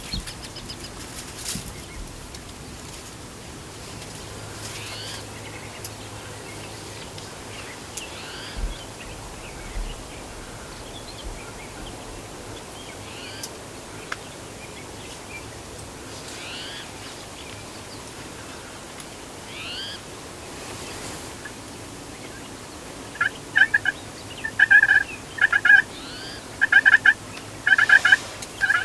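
Wild turkey gobblers gobbling, several loud rapid gobbles in quick succession starting about three-quarters of the way in. Before that, only faint rising bird chirps over quiet background.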